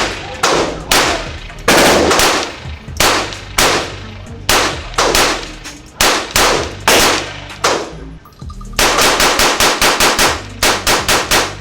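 Gunshots echoing in an indoor shooting range. Single shots come about every half second to second for the first eight seconds, then a quicker string of about fifteen shots, some six a second, runs near the end.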